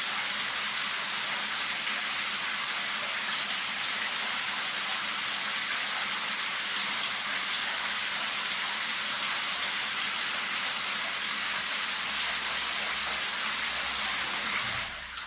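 Shower running full with the tap left open: a steady, even hiss of water spray, which falls away sharply right at the end.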